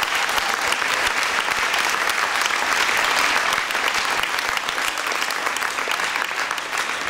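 Audience applauding, many hands clapping at once, easing a little toward the end.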